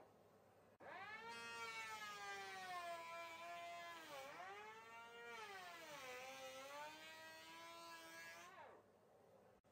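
Cordless electric planer cutting a rebate along the back of a timber architrave, its blades due for replacement. The motor whine starts about a second in, sags in pitch twice as the blades bite into the wood, and winds down near the end.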